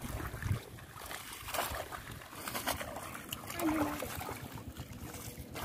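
Shallow water splashing and sloshing unevenly as bare feet wade and hands grope through it among floating water hyacinth.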